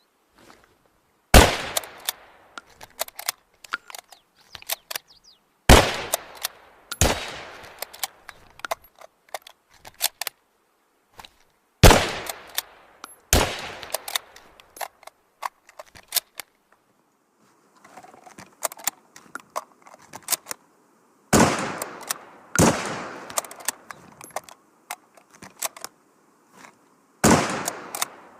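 Improvised rifle sound effect: about eight sharp shot-like cracks, mostly in pairs about a second and a half apart. Each crack is followed by a flurry of small clicks and rattles.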